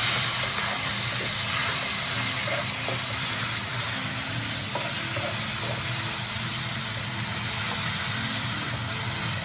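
Pork ribs and salted pork sizzling in a hot wok, hissing steadily as freshly poured vinegar boils off. The hiss is strongest at the start, and a wooden spatula stirs and scrapes the meat against the pan.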